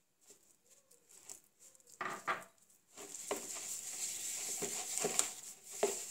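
A hand mixing water into flour dough in a bowl: soft wet squishing, with fingers clicking and scraping against the bowl. It is faint and sparse at first and becomes a steadier, denser run of clicks and scrapes about halfway through.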